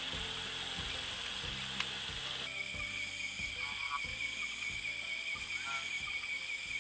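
Night chorus of frogs croaking in a low, repeated pulse under a steady high-pitched drone of insects. The insect tones change about two and a half seconds in.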